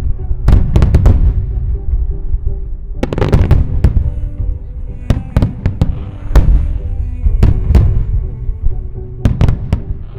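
Wide starmine fireworks display: many aerial shells bursting in rapid volleys of sharp reports, clustered every second or two, each with a trailing rumble, over music playing underneath.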